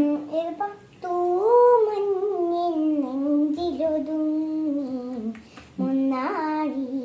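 A woman humming a tune without words, in long held notes that slide up and down, with a short break about five and a half seconds in.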